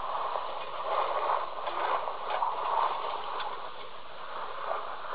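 Steady hiss of steam escaping from the leaking boiler of a home-built steam engine rig, with a few light ticks, heard through a phone's speaker.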